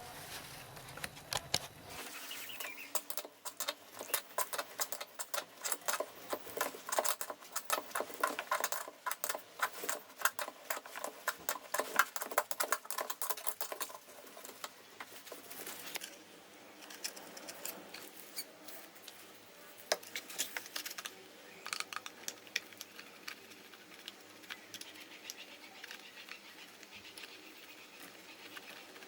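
A dense run of small clicks and taps, busiest in the first half and thinning out after about fourteen seconds.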